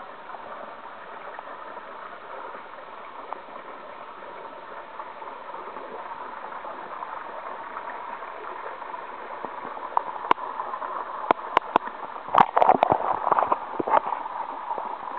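Pool water heard through a camera held underwater: a steady, muffled, hissing wash. From about ten seconds in come sharp clicks and louder splashing and gurgling as the camera is handled at the surface.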